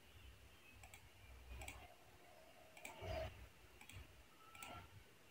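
Near silence with a handful of faint, scattered computer mouse clicks as objects are selected and a menu is opened.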